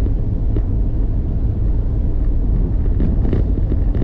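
Steady low rumble of wind and road noise on an action camera's microphone while riding along a road.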